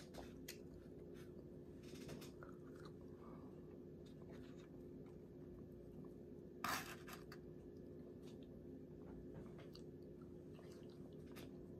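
Faint chewing of fries and turkey tips, with small scattered mouth clicks over a steady low hum. One sharper click stands out about two-thirds of the way through.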